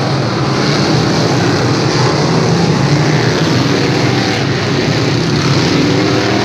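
A field of dirt modified race cars running on a dirt oval, their V8 engines blending into one loud, steady roar.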